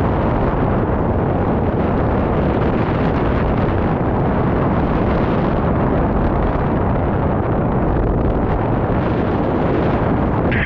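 Wind noise from the airflow over the camera's microphone in paragliding flight: a loud, steady, deep rush.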